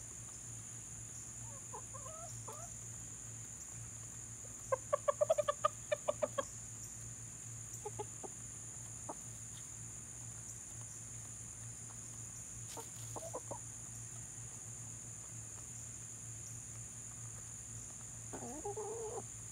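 Chickens clucking as they peck at feed: a quick run of about eight clucks about five seconds in, a few scattered clucks later, and a longer wavering call near the end.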